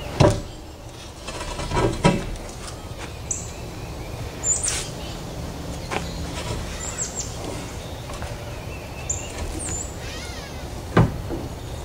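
Several sharp knocks and clanks from a heavy steel-and-plywood truck rack being shifted and walked upright by hand. The loudest come just after the start, about two seconds in and near the end, with short high bird chirps in between.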